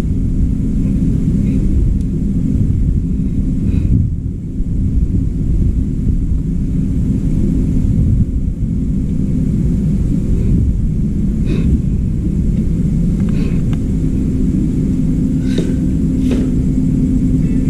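A steady, loud low rumble with a constant hum, with a few light clicks and knocks in the second half as hands handle parts and wiring inside an opened washing machine.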